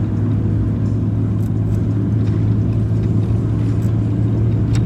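An engine running steadily with a deep, even hum.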